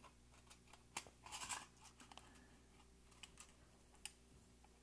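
Faint metallic clicks and scrapes of a Fabarm XLR5 shotgun's bolt and action-bar assembly being slid onto the magazine tube over the action spring: a sharp click about a second in, a short cluster of clicks just after, and a few light ticks later.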